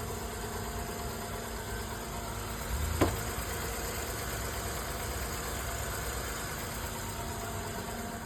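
Honda Odyssey's 3.5-litre V6 idling steadily with a newly fitted timing belt tensioner. There is one sharp click about three seconds in.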